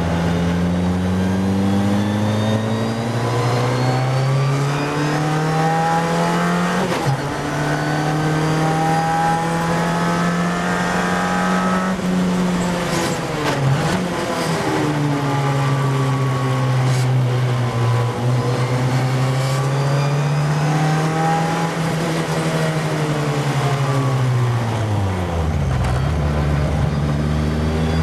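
Formula Ford single-seater's engine heard from on board, revving up through the gears as speed builds, with a brief drop in pitch at each upshift. Near the end it falls away as the car brakes and changes down, then picks up again.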